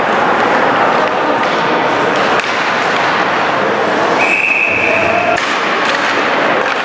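Ice hockey rink game noise: a steady wash of crowd and rink sound with scattered knocks and thuds. About four seconds in there is a short, high, steady tone lasting about a second.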